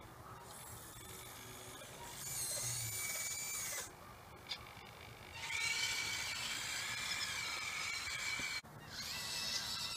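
High, wavering whine of an RC backhoe loader's small electric motors working the loader arm and bucket. It starts and stops in runs: about two seconds in, again from about five and a half seconds to near the end, then once more after a brief break.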